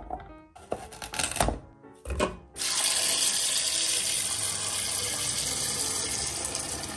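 Tap water running into a stainless steel pot of cut potatoes and carrots, a loud, steady splashing hiss that starts about two and a half seconds in. Before it come a few short knocks.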